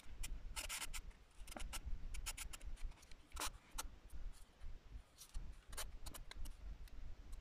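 Nail file rasping across gel-coated artificial nail tips as the nails are shaped: short scratchy strokes at uneven intervals.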